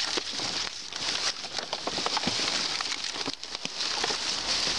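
Plastic garbage bags, paper and cardboard rustling and crinkling in quick, irregular crackles as a gloved hand rummages through trash in a dumpster.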